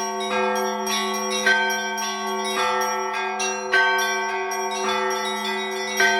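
Russian Orthodox church bells rung in a rhythmic peal (zvon): bell strikes about once a second, a louder stroke every two seconds or so, over a steady deep hum of ringing bells.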